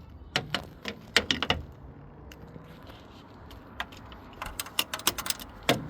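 Light, sharp clicks and taps, a few at a time: a cluster in the first second and a half, then another from about four and a half seconds in.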